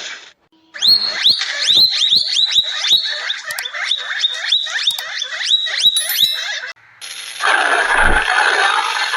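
An animal gives a rapid series of short, high chirping calls, several a second, for about six seconds. Near the end, a different, steady noisy hiss takes over.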